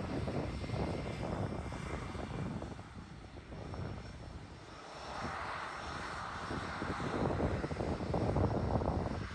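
Airliner jet engines running on the runway: a steady rumble that dips for a couple of seconds midway, then a higher whine, and louder rumble again near the end as a landing Airbus narrowbody comes by.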